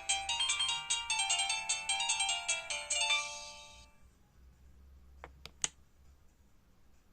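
Alcatel OT-385JA mobile phone playing a ringtone through its speaker: a quick melody with several notes sounding at once, fading out about three to four seconds in. Three short clicks follow about a second later.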